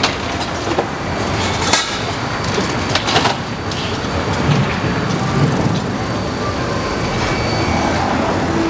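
Seed hotteok frying in margarine on a griddle: a steady hiss, with a few sharp clicks.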